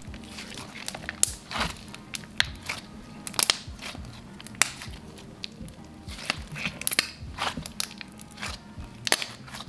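Thick, glossy Elmer's Gue strawberry donut premade slime with sprinkles being stretched, pressed and squeezed by hand, giving irregular wet clicks and pops several times a second.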